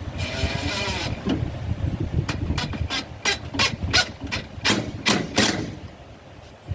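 A power tool whirs for about a second, then about ten sharp knocks come in quick succession as a metal hold-down strap is fastened over an air conditioner.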